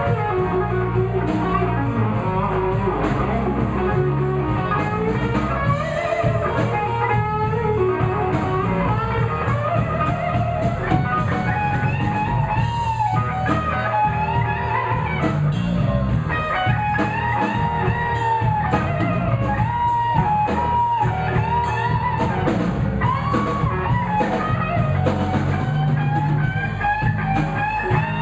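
Live blues band playing an instrumental stretch: a lead line of bending notes over a steady bass and drums.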